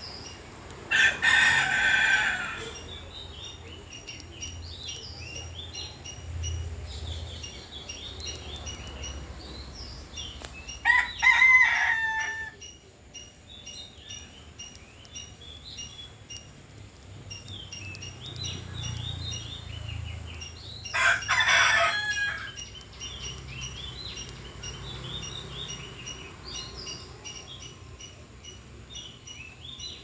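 A loud bird call, three times about ten seconds apart, each lasting about a second and a half, over faint chirping of small birds.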